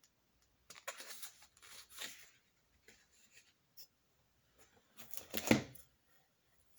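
Packaging rustling and items being handled while things are taken out of a box: papery rustles about a second in, a few small clicks, and a louder rustle with a knock about five seconds in.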